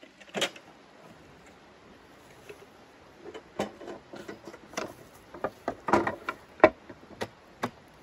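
A series of irregular sharp knocks and clatters, one near the start and then a dense run of about a dozen in the second half, the loudest late on, like objects being handled and set down.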